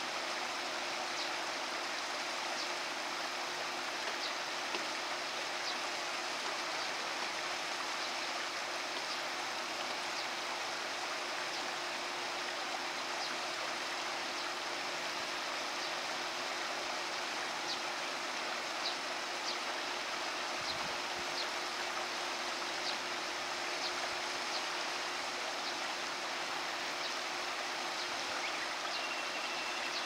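Shallow stream running steadily, an even rush of flowing water.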